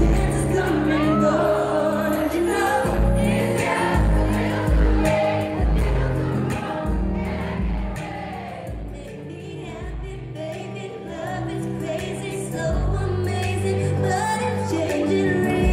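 Live pop concert music heard from the audience: a female singer with her band, deep bass notes pulsing under the vocals. The music drops quieter for a few seconds around the middle, then builds back up.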